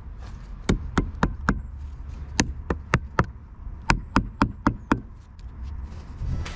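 Hammer striking a wooden brace, knocking it into place against the board formwork: sharp wooden knocks in three quick runs of about four blows, stopping about five seconds in.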